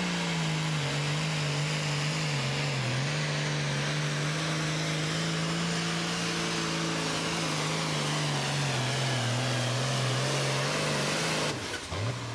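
Diesel engine of a Super Farm class pulling tractor running at full throttle as it drags the weight sled, its note mostly steady with brief dips and sagging lower toward the end. Near the end the engine note drops away suddenly as the throttle comes off and the pull ends.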